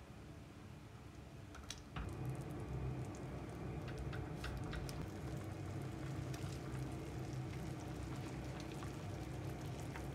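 A pot of soup bubbling on a gas stove, with scattered light clicks of a ladle and spatula against the pot over a steady low hum; it all gets louder about two seconds in.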